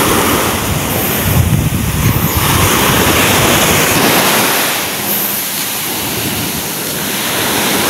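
Sea waves washing on the shore, with wind buffeting the microphone in low rumbling gusts during the first few seconds.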